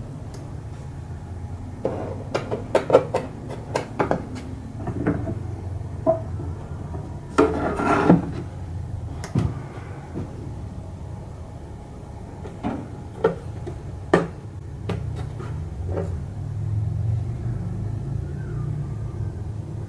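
Wooden knocks, taps and a short scrape as an old wooden toy box and its lid are handled, over a low steady hum. The knocks come in small clusters, with a scrape about eight seconds in.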